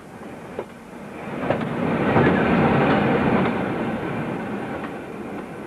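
Train running on rails: a rumble with a few sharp clicks that swells about a second in, is loudest around two to three seconds in, then slowly eases.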